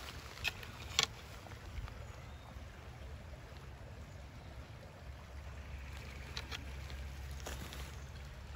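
Footsteps on the rocks and gravel of a creek bed: a few scattered crunches and clicks of stone, the sharpest about a second in, over a low steady rumble.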